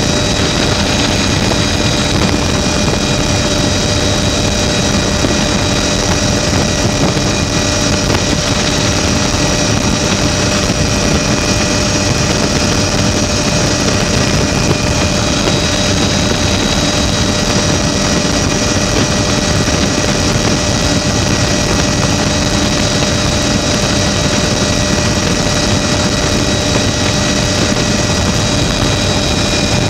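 Helicopter rotor and engine noise mixed with wind rushing past through the open doors: a loud, steady drone with a few steady high-pitched whines running through it.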